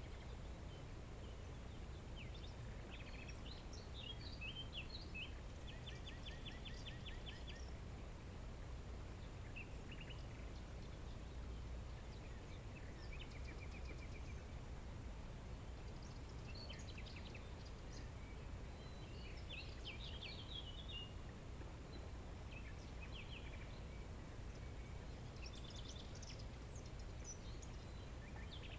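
Small songbirds singing and calling in scattered short chirps and quick trills, including a rapid run of repeated notes about six seconds in, over a steady low outdoor rumble.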